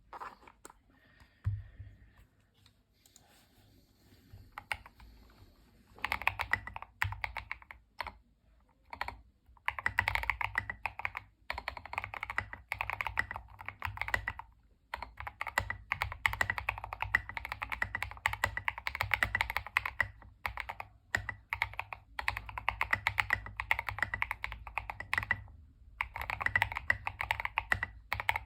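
Typing on a Tester 68 mechanical keyboard kit fitted with Fantasy DVA switches (PC housings, POM stem) lubed with a Krytox 205/105 mix: rapid key clicks and bottom-outs. It starts with a few scattered keystrokes, then becomes steady fast typing about six seconds in, broken by a few short pauses.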